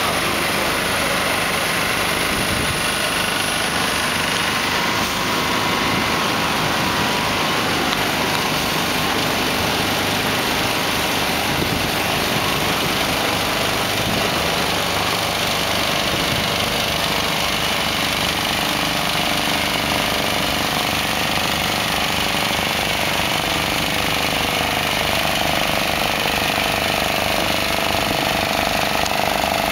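Heavy-haulage vehicle's diesel engine running steadily at low speed, a continuous, even engine noise with no sudden changes.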